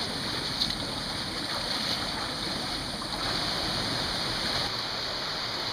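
Steady rushing of river water flowing through a rocky canyon.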